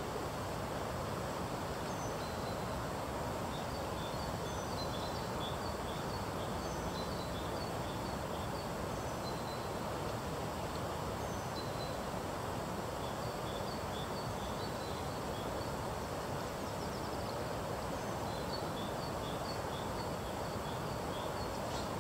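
Steady rushing of a high, fast-flowing river, with a small bird singing short high chirping phrases every couple of seconds.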